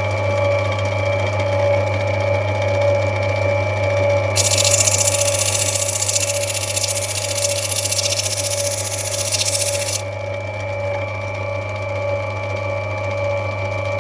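Lapidary grinding machine's motor and wheel running with a steady hum. From about four seconds in until ten seconds, a loud hiss rises over it as a rough opal is pressed against the spinning wheel to rub it back, then cuts off suddenly.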